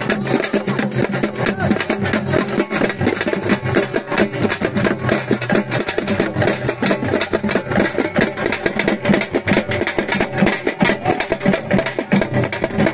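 Loud percussion music with fast, dense drumming and sharp clicking strikes, over a steady pitched backing.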